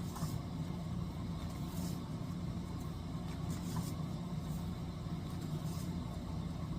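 A steady low hum, with a few faint soft rustles as a hardcover book is handled and its pages leafed through.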